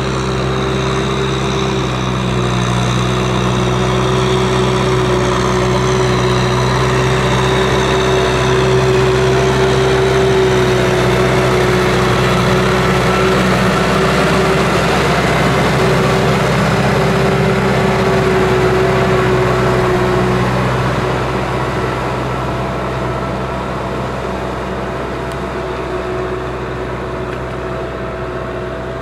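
Kubota M6040SU tractor's diesel engine running steadily under load, with water churning around its tyres as it pushes through deep water, loudest in the middle. The engine sound fades gradually over the last several seconds.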